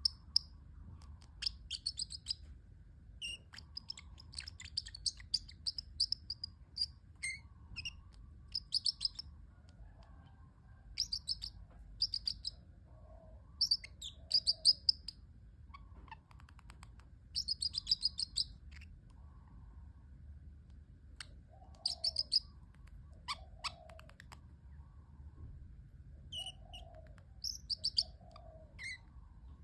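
Pet parrotlet chirping: short, high, sharp chirps in quick clusters every second or two, with brief pauses between.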